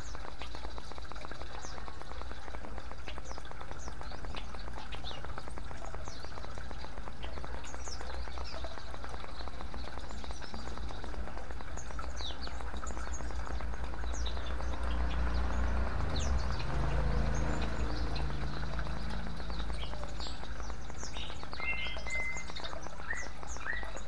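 Water trickling and splashing steadily from bamboo fountain spouts into a clay bowl and stone basin, with small birds chirping briefly here and there. A low rumble swells and fades a little past the middle.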